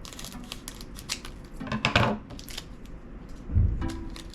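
Trading cards and their pack being handled at close range: a string of crisp clicks, snaps and snips, with a soft thump near the end.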